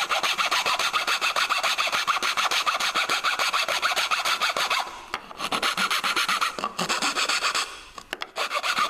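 A small flat metal file rasping back and forth across plywood at the bottom of a finger-joint slot, in quick even strokes, pausing briefly about five seconds in and again a little before the end. The filing trims away the last bit of waste left by the coping saw so the joint fits.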